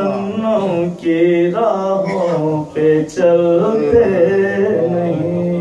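A man's voice chanting in a sung, melodic style into a microphone, holding long steady notes with a few short breaks for breath.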